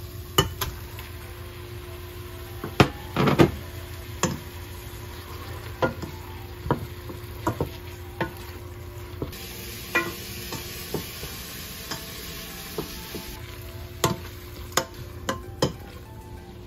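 Raw pork pieces sizzling in a hot stainless steel pot while a wooden spoon stirs them, knocking against the pot's sides every second or so, with a quick clatter of knocks about three seconds in.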